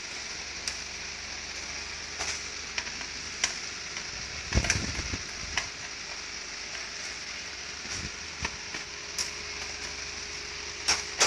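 Scattered light clicks and knocks of metal parts being handled with a screwdriver inside an open Riso digital duplicator, loudest about halfway through and again near the end, over a steady hiss.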